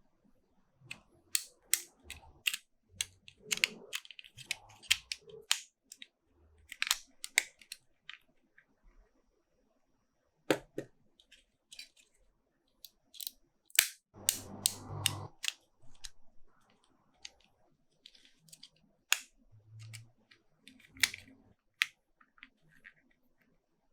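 Handling of small plastic toy figures and their packaging: irregular sharp plastic clicks and snaps, with a brief rustle about fourteen seconds in.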